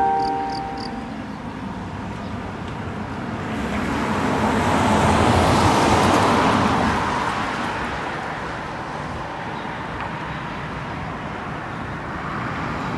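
A road vehicle passing by, its noise swelling to a peak about six seconds in and then fading. At the start, the last ringing notes of the outdoor loudspeaker chime die away.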